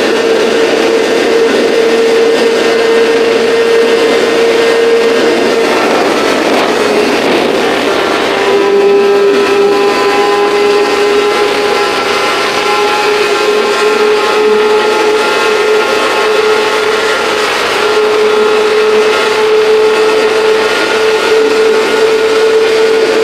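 A vehicle engine running at steady high revs with a strong droning note. The pitch drops a little about a third of the way in and rises back near the end.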